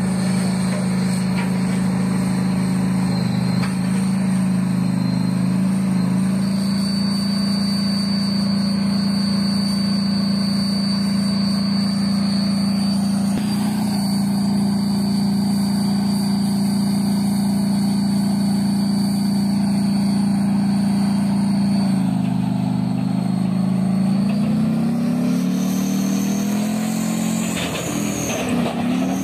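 Tank's diesel engine running hard as the tank drives down a transporter trailer's ramps. It holds a steady pitch at first, drops about two-thirds through, then rises in revs near the end.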